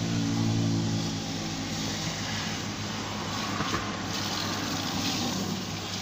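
An engine running with a steady low hum, loudest in the first second and a half and then fading somewhat.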